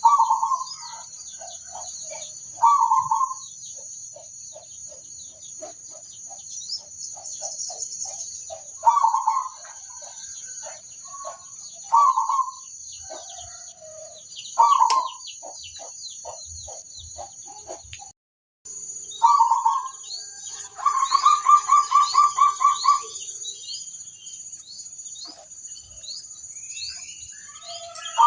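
Zebra dove (perkutut) cooing: short phrases of soft coo notes repeated every few seconds, and a longer rapid run of about a dozen notes near the end. A steady high-pitched insect drone runs underneath.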